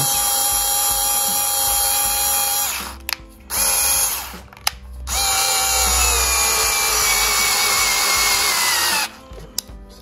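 Cordless drill/driver driving a screw into wood in three bursts: a run of a few seconds, a short blip, then a longer run whose whine drops slowly in pitch as the motor works under load.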